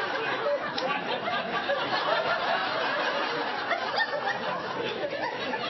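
Studio audience laughing, a steady crowd laugh with no break.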